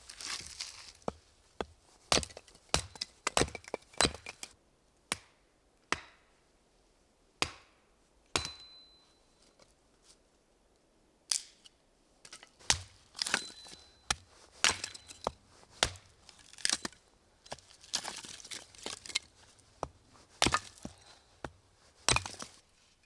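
Irregular sharp chopping knocks and cracks from a blade striking wood or food, some single and some in quick runs. A couple of the strikes leave a brief high metallic ring.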